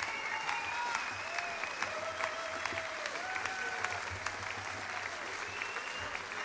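Concert audience applauding steadily, with cheering carried over the clapping.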